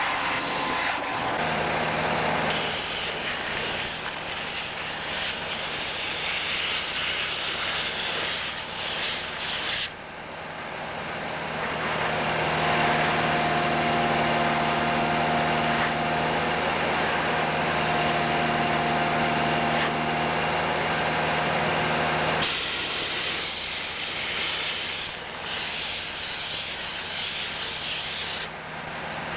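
Pacific Tek trailer-mounted vacuum excavator running, its engine and blower drawing a steady rush of air through the suction hose as it digs. The sound changes abruptly twice. For a stretch in the middle a steady whine stands over the rush.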